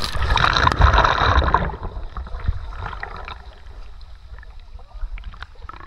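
Seawater splashing and sloshing, loudest for the first second and a half and then dying down to a low wash.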